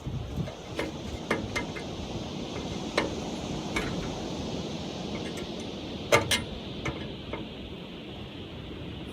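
Light metallic clicks and taps of a chainsaw scrench and a small wrench tightening a screw and nut on an Alaskan chainsaw mill's bracket, scattered irregularly over a steady hiss, with a quick pair of clicks about six seconds in.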